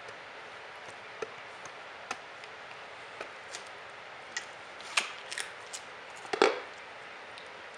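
A capybara biting and chewing a watermelon wedge: irregular crisp crunches of the fruit and rind, coming faster in the second half, the loudest about six and a half seconds in.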